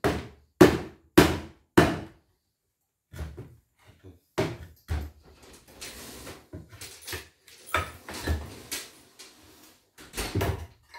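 Claw hammer striking the slats of a wooden shipping crate four times in quick succession, about half a second apart. Then quieter, irregular knocks and scraping of wood as the slats are pried and worked loose, with a few louder knocks near the end.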